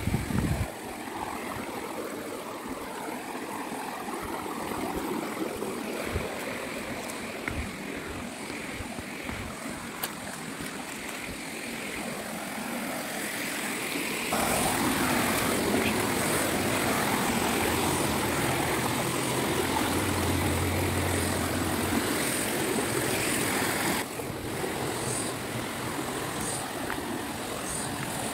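Stream water running, a steady rush that jumps louder abruptly about halfway through and drops back near the end.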